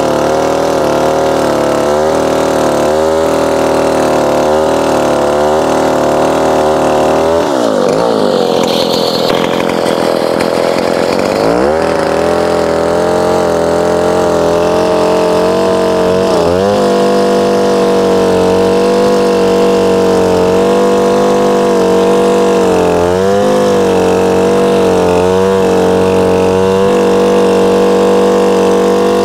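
Stihl two-stroke chainsaw running at high revs while cutting through logs, its pitch dipping briefly each time the chain bites under load. Around a quarter of the way in the revs fall away and then climb back up.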